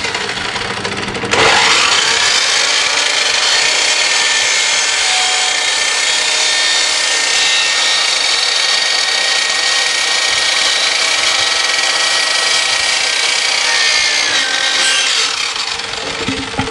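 Electric miter saw running, its blade cutting through yellow plastic pipe: a loud, steady whining saw noise that starts suddenly about a second in and lasts some fourteen seconds before the saw winds down near the end.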